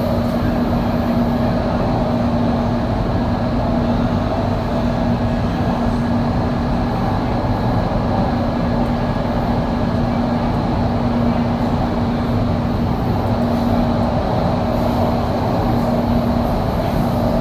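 Doha Metro train running steadily: a constant rumble with a steady low hum, no change in pitch or level.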